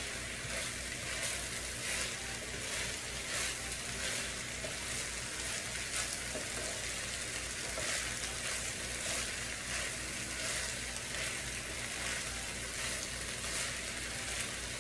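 Chicken fried rice sizzling steadily in an electric skillet while a wooden spatula stirs and tosses it, with irregular soft scrapes of the spatula against the pan.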